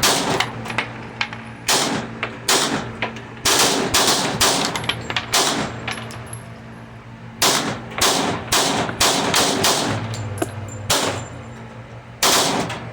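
Many pistol gunshots in quick strings and single reports, including three-shot strings from a Gen 5 Glock 26 in 9mm mixed with other shooters' fire.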